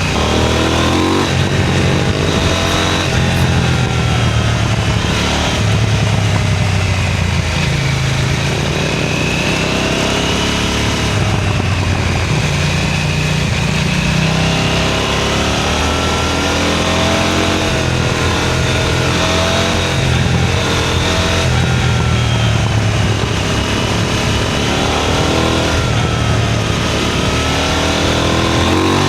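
KTM Duke 990 motorcycle engine running on the move, its revs rising and falling repeatedly with throttle and gear changes at an easy pace.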